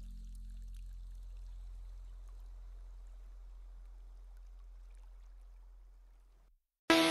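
Background music ending on a low held note that slowly fades away, then a moment of silence, and near the end a new electronic track starts loudly with a steady beat.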